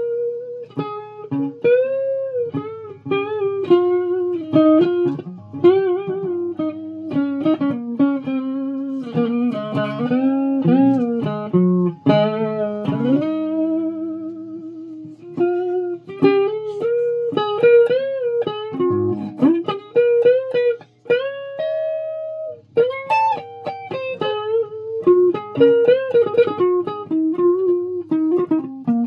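Electric guitar playing a run of single picked notes with string bends and a wavering vibrato on a held note, over a low steady drone.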